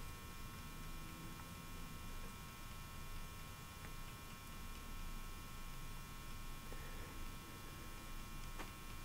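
Steady electrical hum: a stack of faint, unchanging tones over a low hiss, with a few faint ticks.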